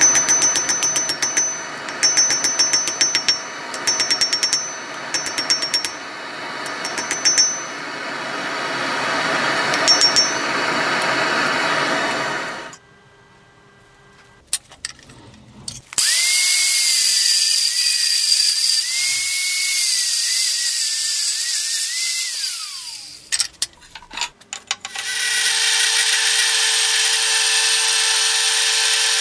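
Hammer blows on a glowing steel billet in short groups, each ringing the Firminy anvil with a high note, over a steady rushing background. After a quiet pause a power tool runs on steel, its pitch wavering and then falling away as it winds down. Near the end a milling machine's cutter faces the steel bar with a steady whine.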